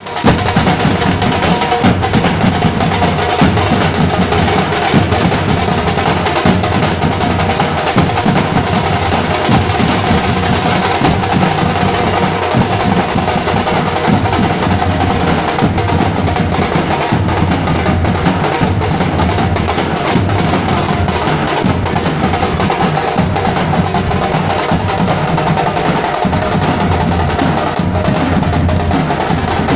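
A Nashik dhol troupe playing: large barrel dhols beaten in a fast, dense, continuous rhythm, loud throughout.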